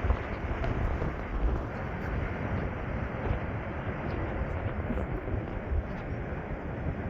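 Strong wind buffeting the microphone: a steady rush of noise, heaviest in the low end.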